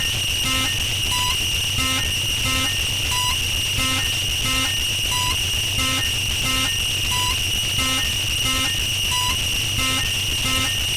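Electronic noise music: a steady high-pitched drone over a low hum, with a looped pattern of short synthetic beeps repeating evenly, a higher beep about every two seconds.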